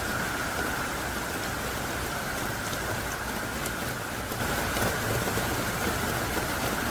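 Heavy rain pouring down steadily, a dense hiss of drops with scattered sharper drips; it swells a little about two-thirds of the way through.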